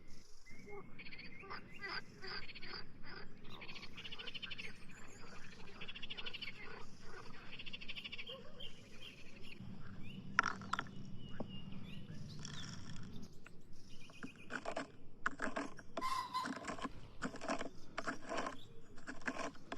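Frogs calling in a chorus of rapid, pulsing trills, with a low hum for a few seconds around the middle.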